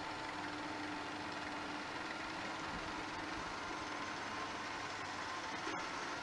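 Deckel FP42NC universal tool milling machine running under power with its coolant system on: a steady hum with an even hiss of coolant spraying.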